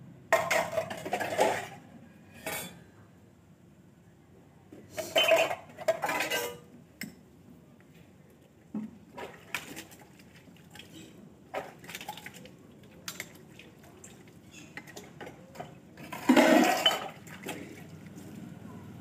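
Steel dishes and pots clinking and scraping as they are washed by hand, with many small knocks and a few louder bursts of water splashing.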